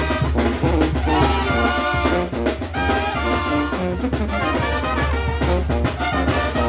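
Brass band playing a chilena: trumpets and trombones carrying the melody over a steady drum beat.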